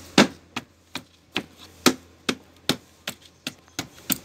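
Hands slapping and patting a rubber floor mat onto a scooter's floorboard, pressing it down onto contact cement. The sharp slaps come steadily, about two to three a second.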